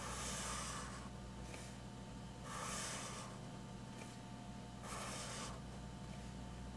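2B graphite pencil drawn across sketchbook paper in long diagonal strokes: three scratchy hisses of just under a second each, about two and a half seconds apart.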